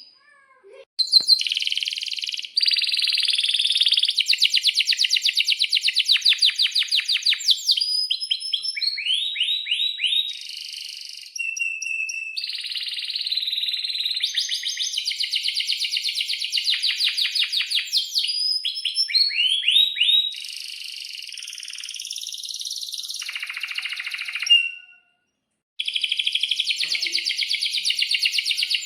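Domestic canaries singing: long, rapid trills of quickly repeated high notes, mixed with sweeping falling notes. The song cuts to silence twice, briefly, where clips are joined.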